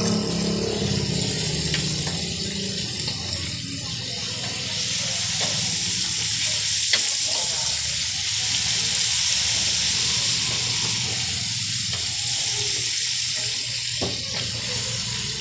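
Battered chicken deep-frying in a wok of hot oil: a steady sizzling hiss, with clinks of metal utensils against the pan as the pieces are stirred, the sharpest about seven seconds in.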